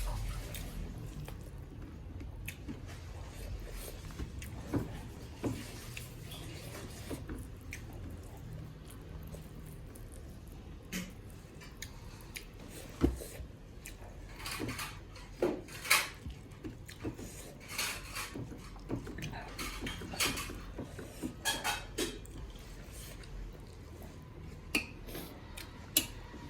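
Someone eating a meal of millet dhedo and local chicken curry close to the microphone: mouth sounds with scattered sharp clicks and clinks against dishes, coming more often in the second half.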